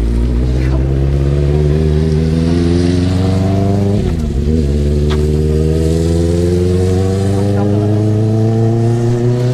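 A road vehicle's engine accelerating close by: its pitch climbs steadily, drops once at a gear change about four seconds in, then climbs again.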